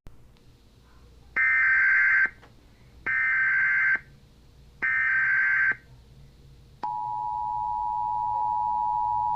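Emergency Alert System tones: three one-second bursts of the SAME digital data header, evenly spaced, then the steady two-tone EAS attention signal starting about seven seconds in.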